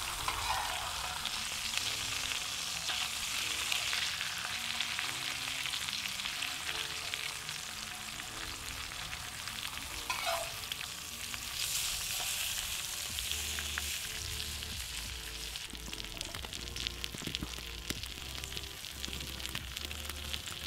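Spatchcocked quail and a leek sizzling and crackling steadily on the hot oiled steel plate of a Petromax fire bowl. Quiet background music with low held notes plays underneath.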